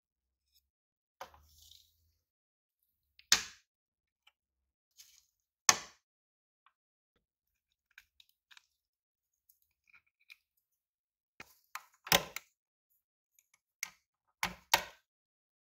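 Sharp clicks and knocks of small plastic and metal scale-model car parts being handled and pried apart, about five in all, two close together near the end.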